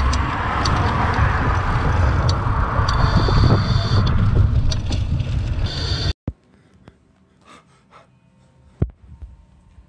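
Wind buffeting the microphone over road noise from a moving ride. It cuts off abruptly about six seconds in, leaving a quiet room with a few faint ticks and one sharp click.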